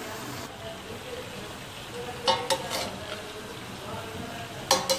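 Spaghetti being stirred into a pan of frying chicken and vegetables with a metal utensil. A steady low sizzle runs throughout, with the utensil clinking and scraping against the pan a few times near the middle and again near the end.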